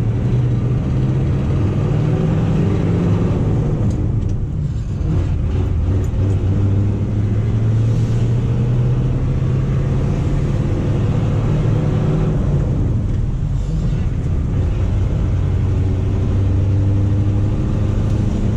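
1985 GMC 3500's 6.2-litre Detroit Diesel V8 running under load while driving, heard from inside the cab. Its steady low note dips briefly twice, about four seconds in and again about thirteen seconds in, then picks back up.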